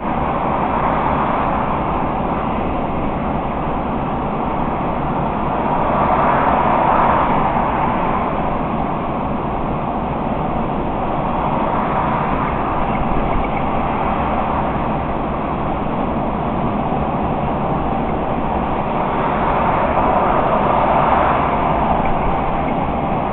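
Steady road and engine noise of a vehicle cruising at motorway speed, heard from inside the cab. It swells gently twice, about a third of the way in and again near the end.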